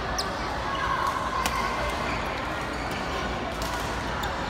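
Badminton rally: rackets striking the shuttlecock, a few sharp knocks spaced irregularly, over the hum of voices in the hall.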